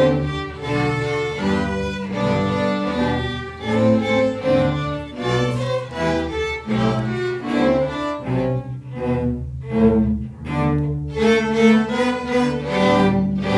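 A student string orchestra of violins, violas and cellos playing a lively piece. The second half is a run of short, separated chords, and the piece closes on a final chord near the end.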